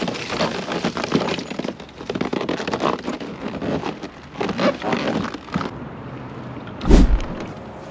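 Irregular rustling and crackling handling noise, with a single heavy thump about seven seconds in.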